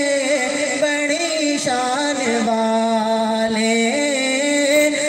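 A young man singing a naat, an Urdu devotional poem, unaccompanied: one voice holding long, ornamented notes that slide between pitches.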